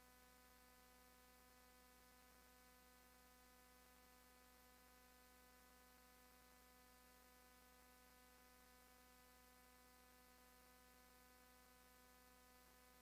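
Near silence with only a faint, steady electrical hum and hiss.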